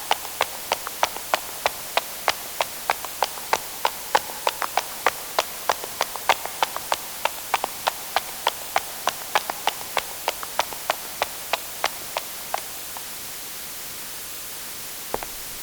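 Footsteps on a hard surface: quick, evenly paced sharp clicking steps, about three a second, over a steady hiss. They stop about twelve and a half seconds in, and a new run of steps begins near the end.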